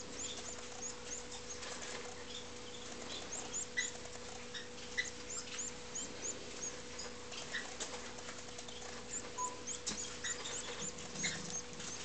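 Fife canary chick begging for food with faint, thin, high peeps, many in quick succession.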